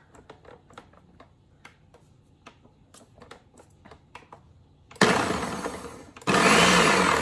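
A few light clicks, then a Ninja countertop blender pulsed twice near the end, chopping fresh basil with olive oil: the motor starts suddenly about five seconds in and fades over about a second, then starts again, louder, with a whine that rises and falls.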